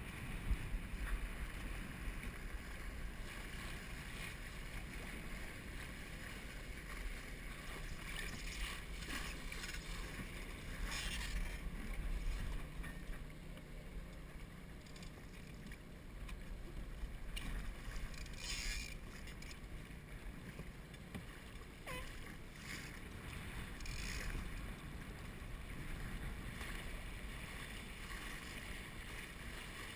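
Water rushing and splashing along a Laser dinghy's hull as it sails through a light chop, with wind buffeting the microphone. A few louder splashes stand out near the middle.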